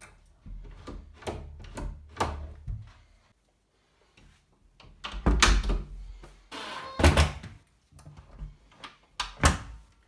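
Clicks and thunks of an interior door being worked: lever handles and latch clacking, then the door knocking against its frame. A run of lighter clicks comes first, then after a short pause come louder knocks, the loudest a little past halfway.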